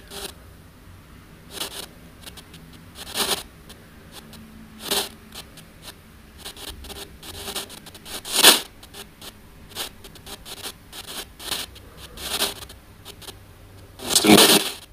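Spirit box radio sweep played through an ANC-Mini noise canceller: short bursts of filtered static and radio fragments every second or so. Near the end comes a louder, voice-like fragment, which the investigator takes for the words "he's teaching".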